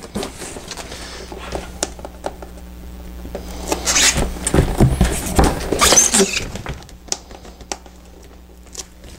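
Stiff panel inserts being handled, folded and pressed into place inside a fabric carrying bag: scattered clicks, scrapes and rustles, busiest from about four to six seconds in and quieter near the end.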